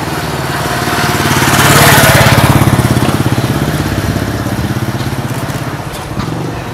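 A motor vehicle engine passing by off-screen, with a fast even pulsing in its low note. It grows louder to a peak about two seconds in, then fades away.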